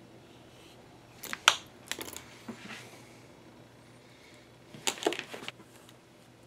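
Leather bag panels being handled and a stitching needle put down on a cutting mat: two short clusters of sharp clicks and rustles, about a second and a half in and again around five seconds in.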